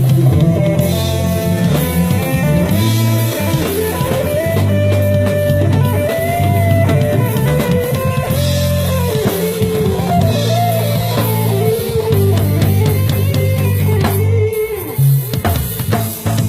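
Live band playing amplified music at a sound check: a guitar melody over steady bass notes and a drum kit.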